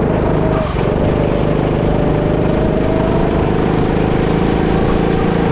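Go-kart motor running at a steady, slowly rising speed, heard from the driver's seat, with a brief dip just under a second in.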